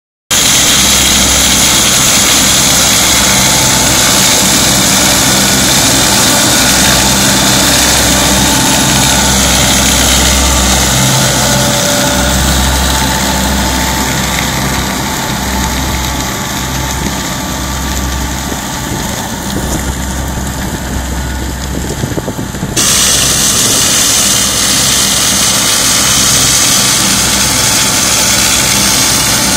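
Tractor engine and onion-lifting machinery running steadily, a low engine hum under a loud high rattle and hiss. The higher noise thins out for a few seconds and comes back suddenly about 23 seconds in.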